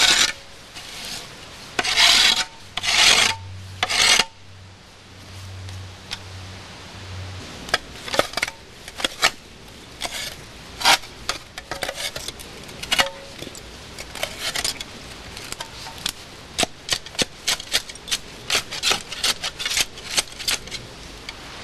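A stick scraping and prodding through dead leaves and soil at the mouth of an old mine shaft. Four loud scrapes come in the first few seconds, then a long run of short scratchy scrapes and clicks.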